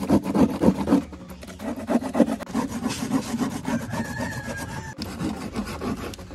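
Rapid back-and-forth rasping strokes of hand work in making a dappu frame drum, loudest in the first second.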